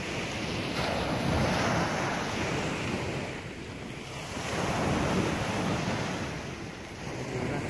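Wind blowing on the microphone over surf on the shore, a rushing noise that swells and eases twice.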